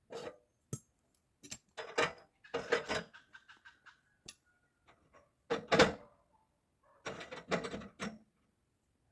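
Handling clatter: several short bursts of knocks and rattles with pauses between them, the loudest about six seconds in.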